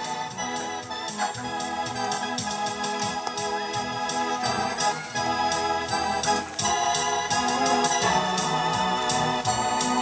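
Organ music with held chords, growing louder over the first couple of seconds and then playing at a steady level.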